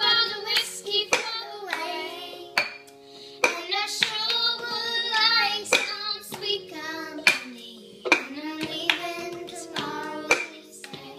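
A girl singing while she claps and raps a plastic cup on a stone countertop in the cup-game rhythm: sharp claps and cup knocks keep a beat under the sung melody.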